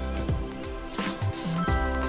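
Background music with held bass notes, sustained tones and sharp percussive hits.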